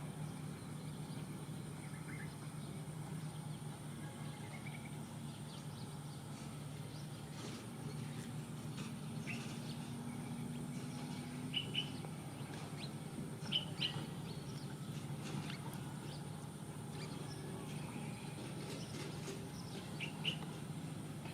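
A few short, high bird chirps, loudest about halfway through and again near the end, over a steady low hum.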